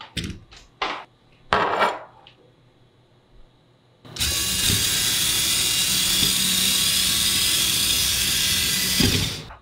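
A few short plastic clatters as a Lego car is handled and set down. Then a Lego electric motor and its plastic gear train whir steadily while the car drives, and the sound cuts off abruptly near the end.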